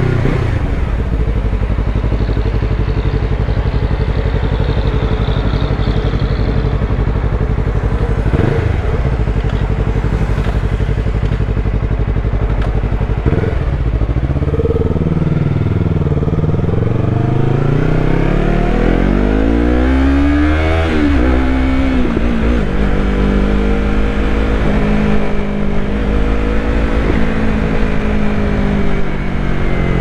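2020 Yamaha MT-03's parallel-twin engine under way, heard from the rider's seat. It runs steadily with two brief breaks at gear changes. Around the middle the revs fall, then climb in a rising pull, break at an upshift about two thirds in, and settle into steady cruising.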